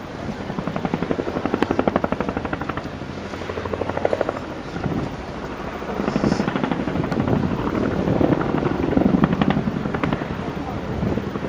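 Helicopter in flight display, its rotor blades beating in a rapid, even pulse that swells louder and fades as it manoeuvres.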